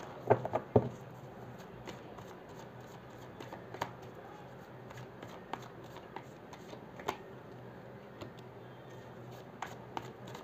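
A tarot deck being shuffled and handled by hand: a quick run of loud card snaps in the first second, then scattered light clicks of cards through the rest.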